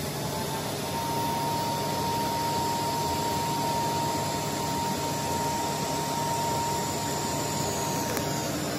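DC TIG welding arc at about 150 amps, run without filler on a thick stainless steel plate: a steady hiss with a thin, steady high whine, cutting off near the end. The welder's water cooler hums underneath throughout.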